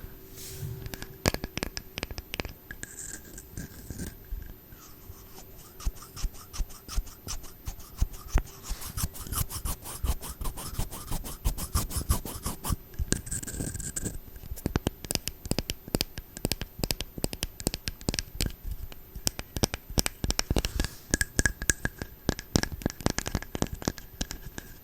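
Close-up scratching and brushing strokes on the microphone, the ASMR sound of makeup being applied to the listener, with rapid ticks and scrapes, densest about a third of the way in.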